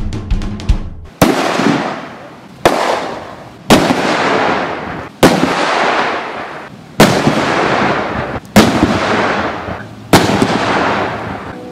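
A string of explosive detonations cut back to back: seven sharp blasts about one to one and a half seconds apart, each fading away over a second or more. A drumbeat sounds in the first second.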